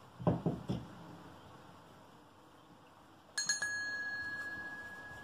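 A few soft thumps, then a small brass bell on a plush toy sheep's collar is knocked by a kitten climbing onto the toy: one sharp clink and a clear ring that fades slowly over about two seconds.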